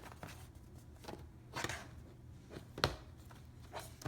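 A small product box and its packaging handled by hand: scattered rustles and light taps, the sharpest near the three-second mark.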